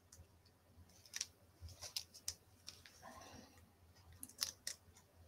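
Faint, scattered clicks and short rustles of small paper die-cut pieces being handled and peeled off.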